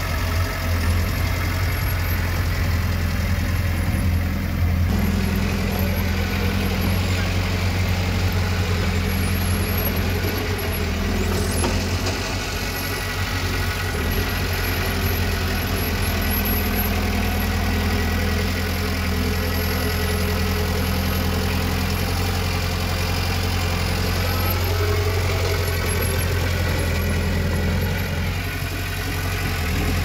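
Diesel engine of a Komatsu D20 bulldozer running steadily with a deep, continuous hum, its note shifting slightly a few times as the load changes.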